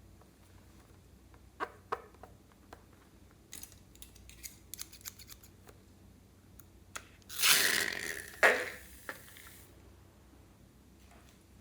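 Scissors cutting through craft material such as a balloon: scattered light clicks and snips, then a louder rasping cut lasting about two seconds a little past the middle, with two sharp peaks.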